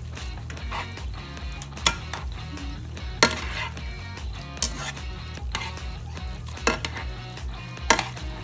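Metal tongs stirring and tossing rice noodles and sardines in a frying pan, with the food sizzling and about five sharp clicks of the tongs striking the pan.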